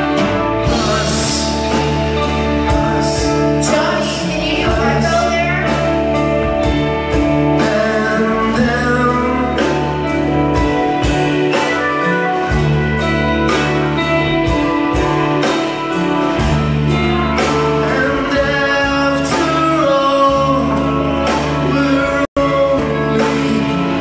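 Live band playing a song, with singing, electric guitars and a steady beat from drums and percussion. The sound drops out for an instant once near the end.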